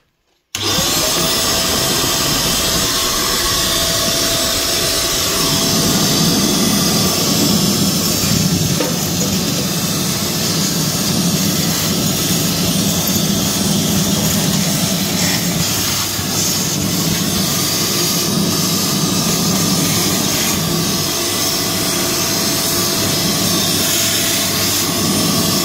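1200 W VANPORE ash vacuum switched on about half a second in, its motor spinning up with a brief rising whine and then running steadily with strong suction. A deeper hum joins from about six seconds in and drops away near the end.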